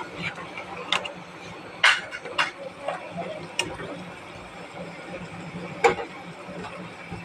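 A cooking utensil knocking and scraping against a pot while a curry is stirred: about five sharp clicks at uneven spacing, the loudest about two seconds in and near the end.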